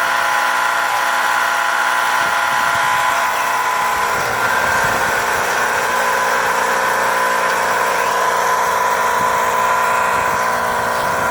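Heat pump running with a loud, steady mechanical whine of several held tones over a low rumble.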